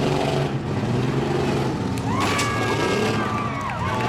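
Demolition derby cars' engines running and revving over a rough engine drone, with a sharp bang about two seconds in followed by a high, steady squeal.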